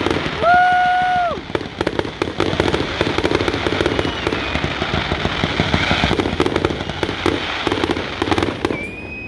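Fireworks display: dense, rapid crackling and popping, with a steady whistling tone for about a second near the start.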